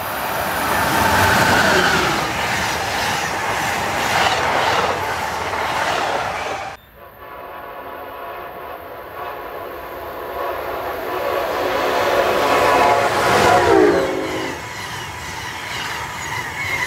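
Amtrak passenger train rushing past on the Northeast Corridor. Then, after a cut, a second Amtrak train sounds a long multi-note air horn as it approaches, and the horn's pitch drops as the locomotive passes. The passenger cars then roll by close at hand.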